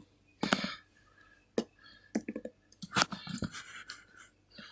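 Barbecue sauce being squeezed from a plastic bottle over food: scattered sharp clicks and a few short squirting sounds.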